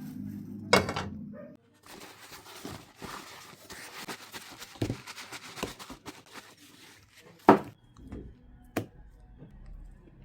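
Handling noises: a few sharp knocks, the loudest about seven and a half seconds in, with rustling and clattering between them.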